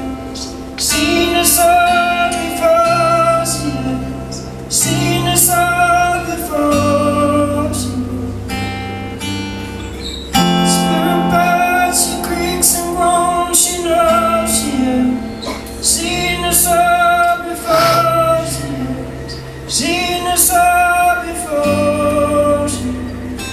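Live band music: a held, wordless sung melody over acoustic guitar and sustained low bass notes, with a steady beat of sharp percussive strokes.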